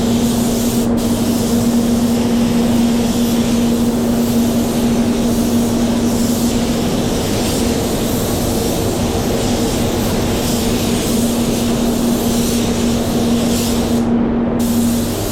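Air spray gun hissing steadily as it sprays epoxy primer, cutting out briefly about a second in and again near the end as the trigger is let go, over a steady low hum.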